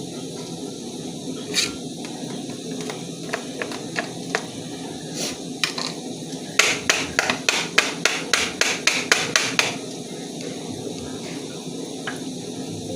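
A few scattered sharp knocks, then about three seconds of rapid sharp knocking, roughly five strikes a second, from a kitchen utensil striking a hard surface during food preparation.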